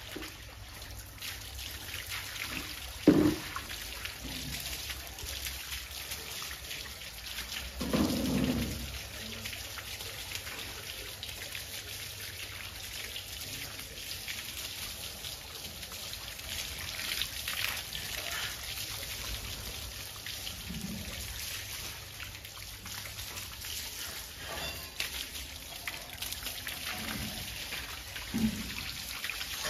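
Water from a garden hose spraying and splashing onto a dog's coat and wet concrete as a dog is hosed down. A sharp knock comes about three seconds in, with a duller thump a few seconds later and a few faint thumps near the end.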